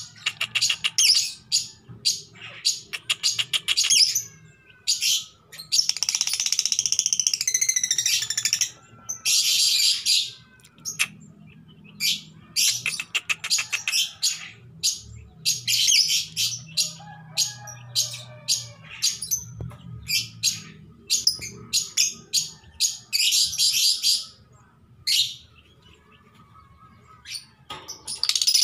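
Female Fischer's lovebird giving a long series of short, shrill chirps in quick runs with brief pauses, with a longer chattering stretch about a quarter of the way in. It is the mating call of a female in heat, calling for a male.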